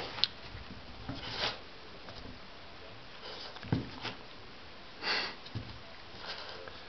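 Jack Russell terrier sniffing hard at the gap under a door, scenting a mouse: short snuffling bursts every second or two, with a couple of sharp knocks.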